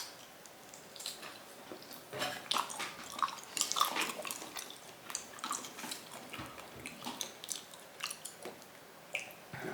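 Chewing raw meat close to the microphone: soft, irregular wet clicks and smacks.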